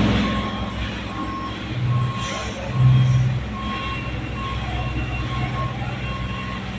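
Boom lift running with a steady engine hum while its motion alarm beeps repeatedly, about three beeps every two seconds. The engine note swells briefly twice, around two and three seconds in, as the machine works.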